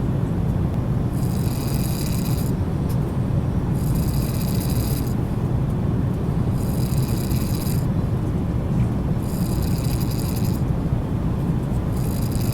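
A man snoring, five snores about every two and a half to three seconds, over the steady low rumble of an airliner cabin in flight.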